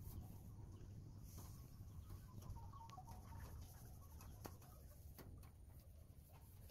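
Near silence: a low background rumble with a few faint clicks, and a bird calling briefly and faintly about halfway through.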